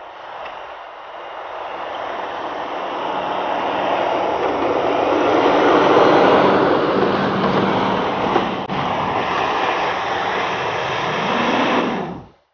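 Jeep Cherokee (Liberty) engine working under load as the SUV ploughs through deep snow, its tyres churning and throwing snow, louder as it comes up close. A single sharp knock about three-quarters of the way through, and the sound cuts off suddenly near the end.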